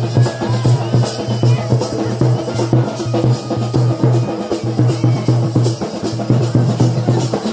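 Badaga folk dance music with a steady drum beat, accompanying a circle dance.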